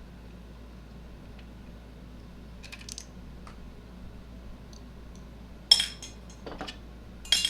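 Small metal hardware clinking: a few light clicks, then two sharp metallic clinks with a brief ring, like bolts or washers set down on a hard surface during scooter teardown.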